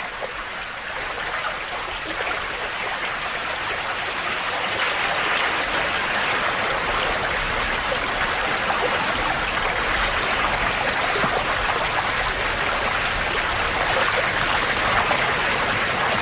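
Fast-flowing stream water rushing steadily, growing a little louder over the first few seconds.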